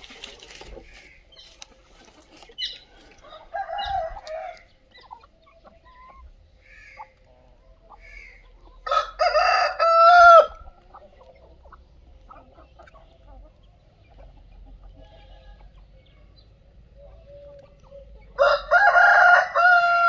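Aseel roosters crowing twice, each crow about a second and a half long, one about nine seconds in and one near the end, with softer chicken clucking in between.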